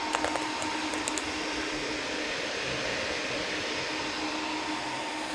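Cooling fans of a six-card Nvidia RTX A5000 GPU mining server running steadily under mining load: an even rushing whoosh with a steady low hum and a higher whine. A few faint clicks come about a second in.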